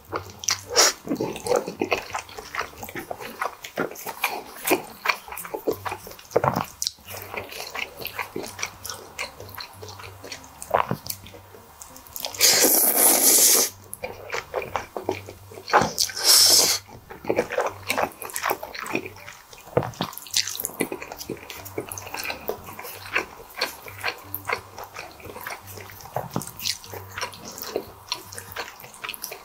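Close-miked slurping and chewing of squid ink spaghetti: wet mouth smacks and clicks throughout, with two long, loud slurps about twelve and sixteen seconds in.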